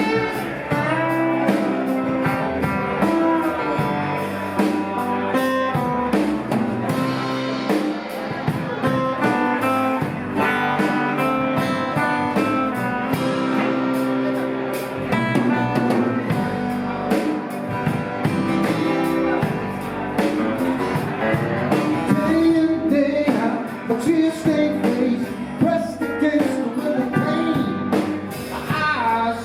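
Band playing a blues song live, with guitar and drum kit and singing over them.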